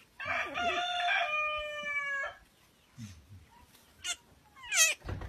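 A rooster crowing once: a single drawn-out call of about two seconds, steady in pitch and dropping a little at the end. Two short, high, rising squeaks follow about four and five seconds in.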